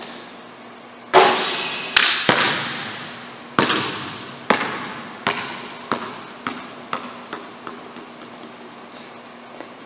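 A basketball lands hard about a second in and then bounces on a hardwood gym floor. The bounces come quicker and quicker and get weaker as the ball settles, each one echoing in the large empty gym.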